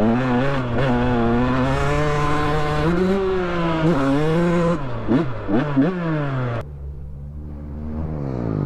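Two-stroke dirt bike engine held at high revs for several seconds, then falling and rising quickly in pitch a few times as the throttle is chopped and blipped. It drops to a lower, quieter steady note, then the revs climb again near the end.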